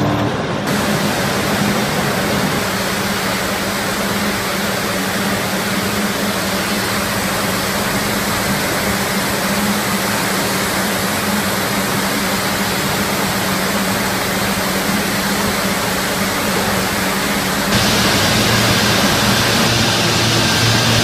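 Yarn-spinning machinery in a mill running steadily: the dense whirring hiss of many spinning spindles, with a steady low hum. About three-quarters of the way through, the noise turns louder and brighter where two-for-one twisting machines take over.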